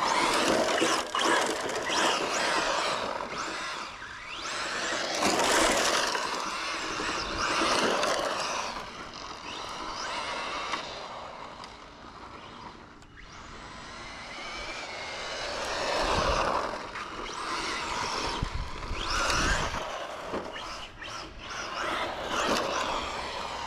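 Arrma Infraction RC truck with a Castle brushless motor driven hard on rough asphalt: high-pitched motor whine rising and falling with the throttle over the hiss of its tyres on the pavement. It grows louder and fades away several times as the truck comes near and runs off.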